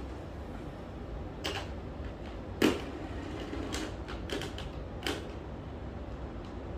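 A handful of sharp clicks and knocks, the loudest about two and a half seconds in: a replacement suitcase wheel assembly and screwdriver being handled while the wheel is fitted to the case.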